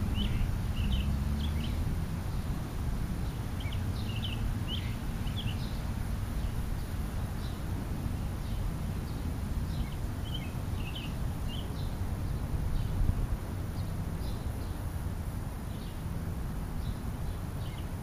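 Birds chirping in short, scattered high notes, a few at a time, over a steady low outdoor rumble.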